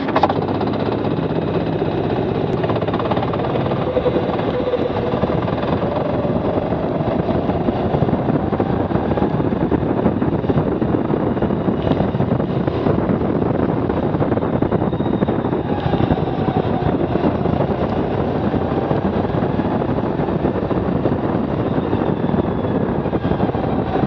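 Go-kart engine running hard on track, its pitch rising as the kart gathers speed and dropping back into the corners, under a dense rush of wind and road noise.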